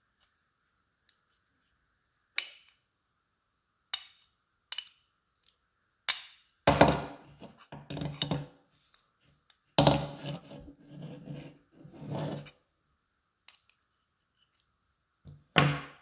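Precision screwdriver clicking and scraping against the black plastic housing of a small spirit level as a screw is worked on, with the housing knocked while it is handled. There are single sharp clicks at first, then two longer stretches of scraping and knocking in the middle, and a few more clicks near the end.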